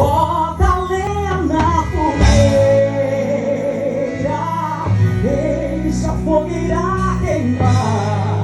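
A song sung with instrumental backing: a vocal line over guitar and a steady bass.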